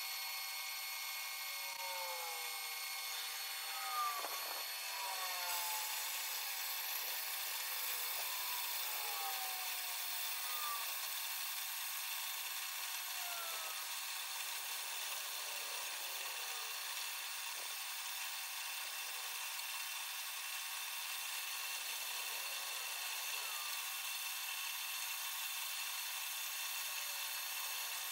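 Metal-cutting bandsaw ripping through an annealed, soft damascus steel billet under flood coolant: a steady whine and hiss of the blade in the cut. Several short falling squeaks come through the first half, and there is one brief knock about four seconds in.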